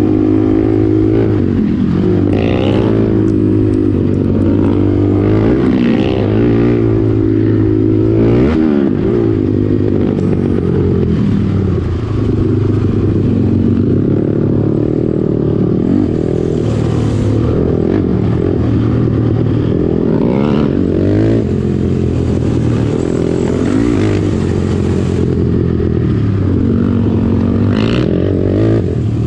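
Sport quad's single-cylinder four-stroke engine running hard on a trail, its revs rising and falling over and over with the throttle and gear changes.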